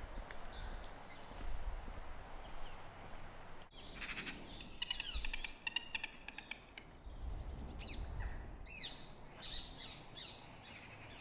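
Wild birds chirping and calling in quick clusters of short, high notes, starting about four seconds in, over a low rumble.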